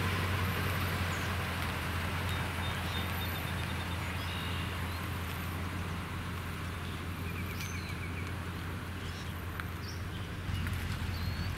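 Toyota Tundra pickup's engine running at low speed as it backs a boat trailer down a concrete launch ramp, a steady low hum. Small birds chirp now and then, with a short trill about two-thirds of the way through.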